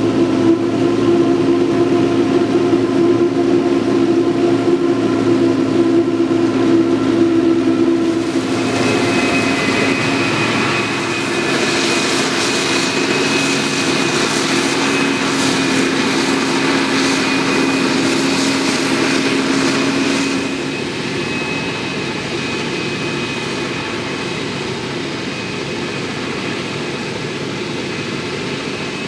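Krone Big X 700 forage harvester's V8 engine running under load while chopping maize, with a tractor engine running alongside. About eight seconds in, a bright rushing noise of the chopper and crop flow joins the engine drone for some twelve seconds. After that the sound settles to a slightly softer, steady engine note.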